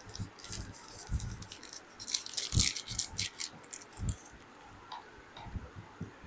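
Handling noise: irregular clicks and crinkling rustles with a few soft knocks, busiest about two to three seconds in.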